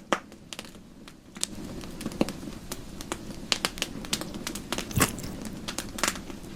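Wood campfire burning, a steady low rush with irregular sharp crackles and pops, one of the loudest about five seconds in.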